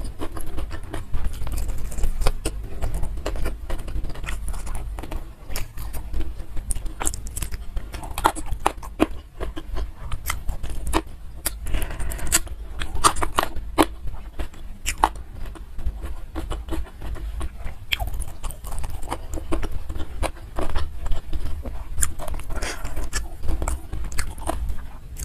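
A person chewing and biting food close to the microphone while eating by hand: fried tofu dipped in sambal, then rice. Many irregular wet mouth clicks and crunches.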